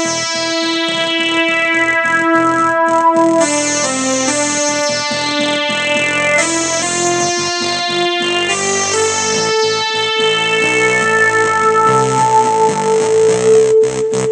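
Yamaha DGX-660 digital keyboard played with both hands: a slow melody of long held notes over lower chords.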